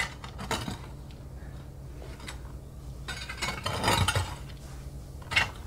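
A few scattered scrapes and clinks of hard objects being handled against the metal rim and masonry of a firebox's cauldron opening, with a low steady hum underneath. The busiest run of clinks comes three to four seconds in, and a single sharper one follows near the end.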